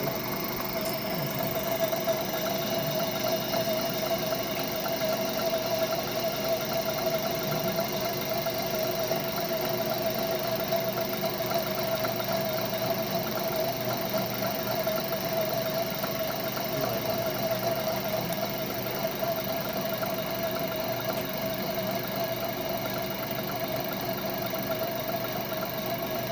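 Centre lathe running steadily, its motor and gearing giving an even hum with a strong, steady mid-pitched whine over it.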